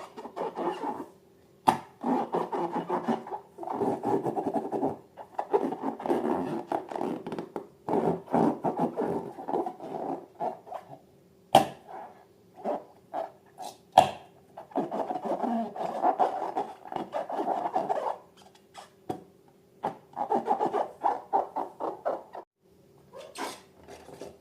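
Rubbing and squeezing of balloons and slime by hand, in repeated bursts a second or a few seconds long. A few sharp clicks fall between the bursts, over a faint steady hum.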